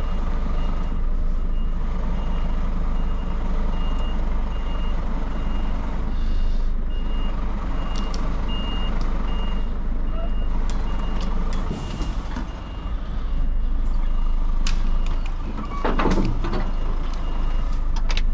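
Truck reversing alarm beeping about twice a second over a running diesel engine, with a louder rougher noise about 16 seconds in.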